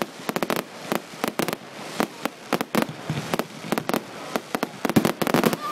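Fireworks going off in quick, irregular succession: sharp bangs and cracks, several a second, with the thickest, loudest cluster about five seconds in.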